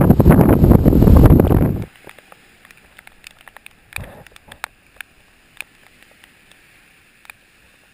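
Storm wind buffeting the microphone, cutting off abruptly about two seconds in; after that it is quiet with a few scattered faint clicks.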